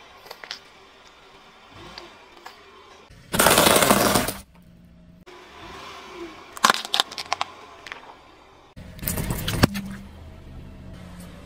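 A car tyre rolling slowly over small objects on asphalt and crushing them one after another. About three seconds in there is a loud rush of noise lasting about a second. A run of sharp cracks and pops follows, then another loud burst near the end.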